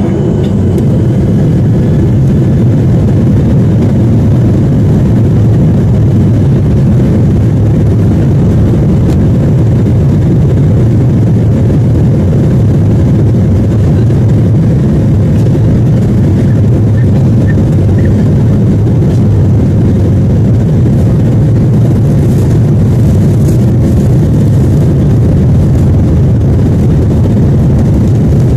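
Jet airliner engines at takeoff power during the takeoff roll, heard inside the cabin: a loud, steady, low roar that swells at the very start and then holds.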